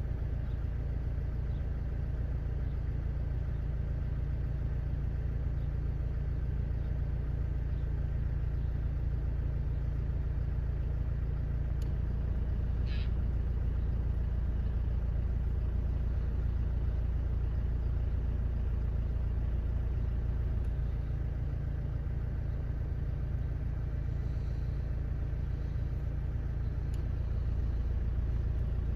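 A vehicle engine idling, a steady low rumble throughout, with a brief high chirp about halfway through.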